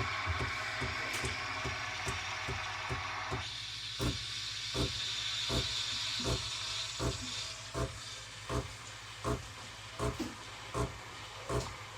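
Breville Barista Touch steam wand hissing as it automatically froths milk in the jug, with regular low thuds about every three-quarters of a second. About three and a half seconds in the hiss turns higher and thinner, then fades away after about seven seconds while the thuds keep going.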